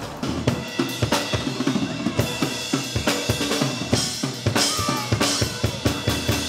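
A band playing, the drum kit driving a steady beat with bass drum, snare and cymbal strikes over held instrument notes.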